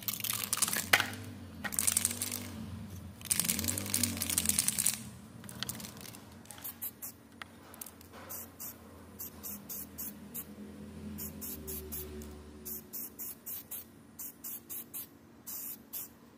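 Aerosol spray-paint can shaken with its mixing ball rattling, then sprayed in many short hissing bursts.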